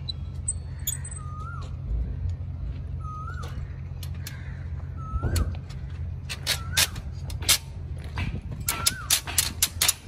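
Pliers and steel tie wire clicking against rebar as wire ties are twisted tight, the clicks coming thick and fast in the second half. A short animal call that rises then falls repeats about every two seconds over a steady low rumble.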